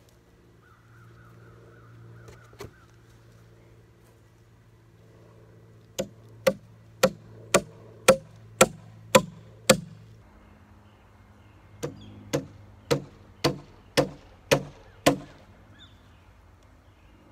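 A steel hammer drives a nail into reclaimed wooden framing lumber with eight sharp blows, about two a second. After a short pause, seven more blows follow at the same pace.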